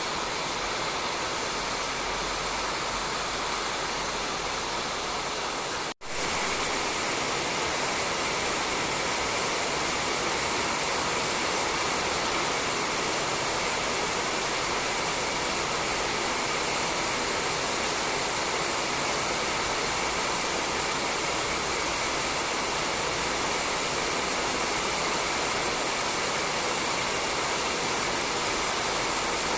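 Steady rain falling on a roof, an even hiss of many drops. It cuts out for an instant about six seconds in, then comes back slightly louder and brighter.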